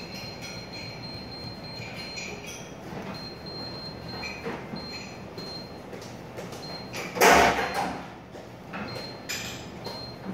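High-pitched beeps in dashes of uneven length from a Winterhalter PT-M glasswasher's touchscreen control panel as its parameter arrow is pressed repeatedly. A loud thump comes about seven seconds in.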